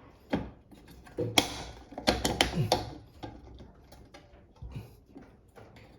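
Small metal hardware being worked by hand while a screw is fastened: a run of sharp clicks and knocks, thickest between one and three seconds in, then lighter ticking.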